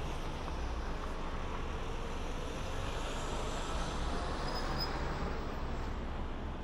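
Steady road noise of a car travelling at expressway speed: tyre hiss over a deep, even rumble.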